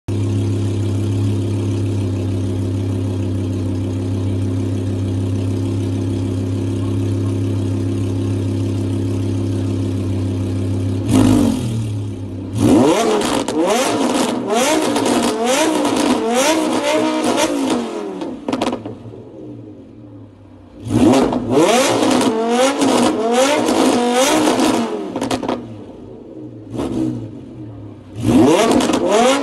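Lamborghini Huracán LP610-4's 5.2-litre V10 breathing through a Fi valvetronic exhaust, idling steadily and then revved in place. A single sharp blip comes about eleven seconds in, followed by bursts of quick repeated revs with quieter lulls between them.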